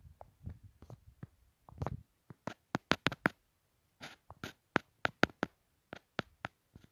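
A low rumble with a few soft taps for the first two seconds, then a string of irregular sharp clicks, about fifteen over the next five seconds.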